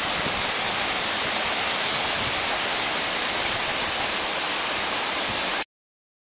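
Steady rushing hiss of a nearby waterfall, cutting off abruptly near the end.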